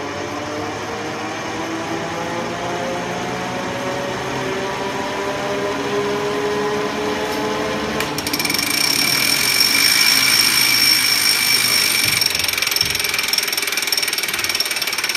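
A machine running, its hum rising slowly in pitch. About eight seconds in it switches abruptly to a louder, steady high-pitched whine over a hiss.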